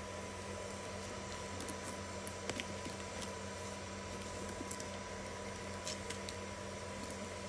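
Steady electrical hum with a thin high tone, and a few faint, light clicks scattered through it.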